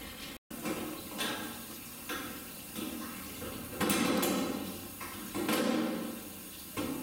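Ezo brown bear eating at feeding time: rough, noisy bouts of chewing and crunching on its food, two loud bouts about a second long in the second half.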